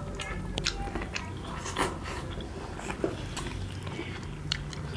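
Close-up biting and chewing of chicken momo dumplings: irregular wet mouth clicks and smacks, over a low, steady hum.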